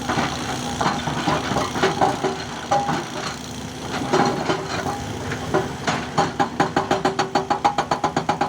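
Heavy digging machine working, its engine running under irregular metallic knocks and clanks; about six seconds in it changes to a fast, even pounding of roughly five to six strokes a second.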